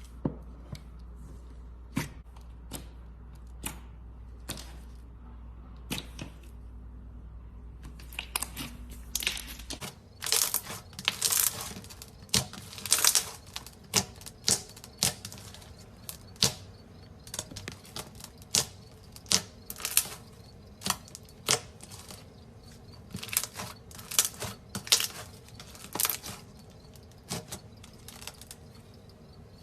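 Slime being pressed and worked by hand, giving sharp clicks and pops. For the first ten seconds the clicks come singly over a low hum. After that they turn into dense, irregular runs of clicking and crackling.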